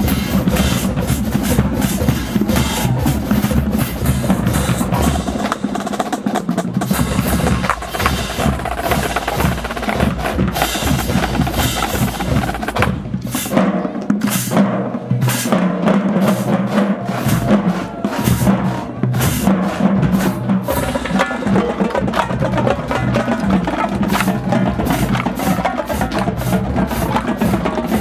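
Marching band drumline playing a fast cadence of rapid snare drum strikes and rolls over bass drums. The low bass drums drop out briefly about five seconds in and again for a few seconds around the middle.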